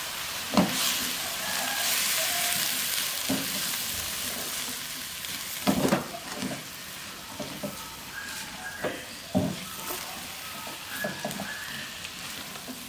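Long beans and scrambled egg sizzling in a hot wok as they are stir-fried with a spatula, which scrapes and knocks against the wok several times while the chilies and seasoning are stirred in. The sizzling is louder in the first half.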